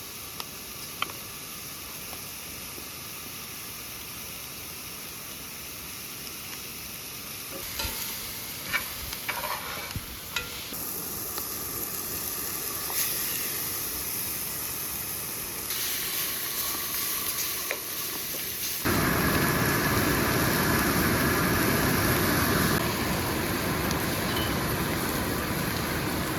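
Potatoes and chopped vegetables sizzling in a stew pot as they are stirred, with a few sharp knocks of the spoon against the pot. The sizzle jumps abruptly louder about two-thirds of the way through.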